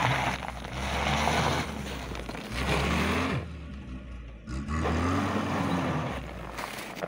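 Lada VAZ-2104's engine revving up and down several times as its rear wheels, driven through a Quaife worm-gear limited-slip differential, spin in snow. Each rev brings a loud rush of tyre and thrown-snow noise. There is a brief quieter lull a little past the middle.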